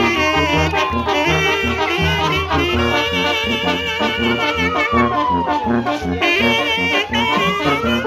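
Brass band playing a Latin dance tune with a steady thumping beat. A siren wails slowly over it, falling and rising in pitch about every four to five seconds.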